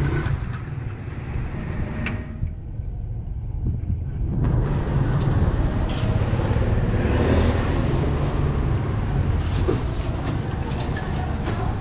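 Street traffic: motor vehicles running close by, a steady low rumble with road noise.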